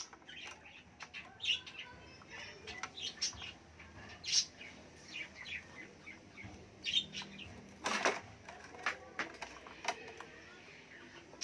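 Irregular small plastic clicks and rustling as fingers push red insulated wire connectors onto a motorcycle's wiring harness, with one sharper click about eight seconds in.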